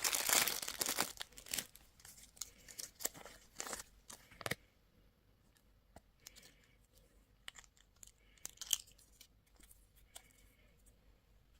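Candy wrapper being torn open and crinkled, dense at first, then thinning to scattered crinkles and small clicks. From about four and a half seconds in, only a few faint crinkles.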